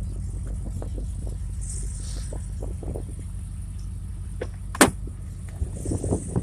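Ford Falcon XR8's Tickford 5.0 L 302 Windsor V8 idling steadily with a low rumble. Scattered light knocks and one sharp click about five seconds in.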